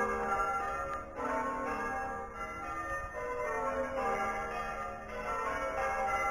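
Church bells being rung in changes: a peal of several tower bells struck one after another in quick succession, their tones ringing on and overlapping.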